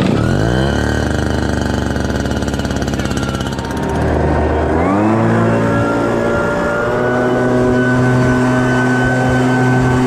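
Two-stroke backpack leaf blower engine (a 540BT) catching on the pull and settling into a steady idle. About four seconds in it revs up and holds a steady high speed, blowing.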